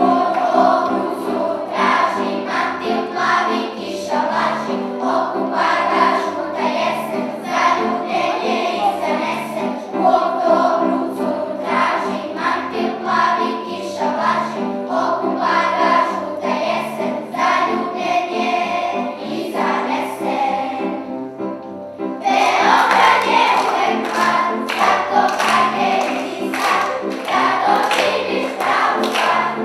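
Children's choir singing a song over instrumental accompaniment with a steady beat. The voices drop out briefly about twenty seconds in, then come back louder.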